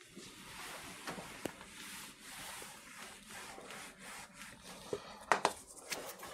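Whiteboard eraser wiping across a whiteboard: a steady, dry rubbing hiss. After about five seconds come a few sharp clicks.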